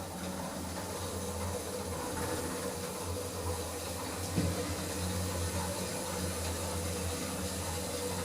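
Otis Gen2 lift car travelling down between floors: a steady low hum and rushing noise of the moving car, with one brief knock about halfway through.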